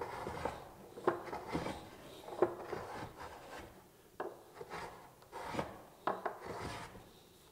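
Low-angle block plane cutting across tiger maple end grain in a quick series of short rasping strokes, a little under two a second.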